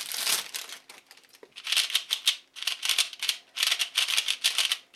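A Gans 3 3x3 speedcube being turned by hand in about four quick bursts of clicking layer turns, with plastic wrapping crinkling briefly at first. The cube is very loud as it turns.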